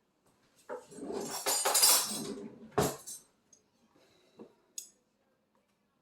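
Metal spoons clinking and rattling together as they are handled, with one sharp clink about three seconds in, then a couple of faint clicks.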